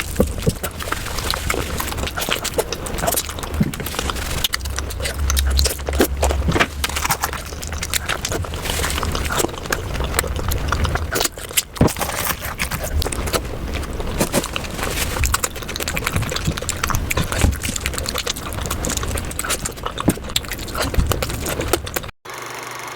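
Close-miked eating sounds played at double speed: rapid, dense mouth clicks and smacks from chewing chicken curry. About 22 seconds in they cut off abruptly, and a steady hum follows.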